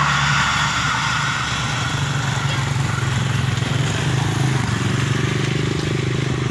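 Motorcycle engines idling steadily at a railway level crossing, one moving off near the end, while the rumble of a passing passenger train's wheels on the rails fades away in the first second or so.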